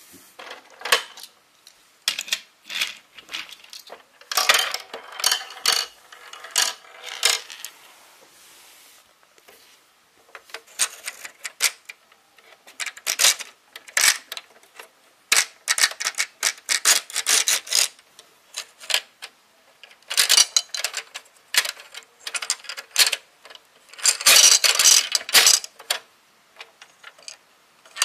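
Irregular clinking and clattering of small hard objects, many quick sharp strikes in clusters, some with a brief ring.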